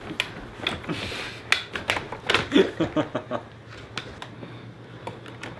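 Manual wheelchair clicking and rattling as it is tipped back and rolled over a rug, a rapid run of knocks for the first few seconds, with a few short vocal sounds in the middle; quieter near the end.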